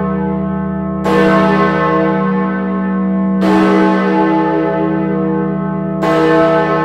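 Great George, the great bell of Bristol's Wills Memorial Building, swinging and striking three times about two and a half seconds apart. Each stroke leaves a long, slowly fading ring with a deep hum beneath it that carries under the next stroke. It is being rung as a toll for the Queen.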